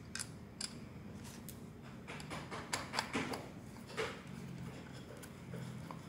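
Scattered small clicks and metal taps as the handle part of a smart door lock is pushed back into the lock body and a screwdriver is fitted to its screw.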